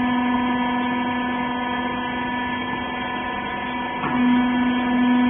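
Twin ram rag baler's electric motor and hydraulic pump humming steadily with a fixed pitch; about four seconds in the hum briefly dips and comes back a little louder.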